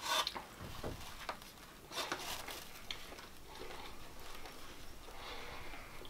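Quiet sounds of two people eating sandwiches up close: chewing, breathing and small rustles, with a short noisy burst at the start and another about two seconds in, and scattered small clicks.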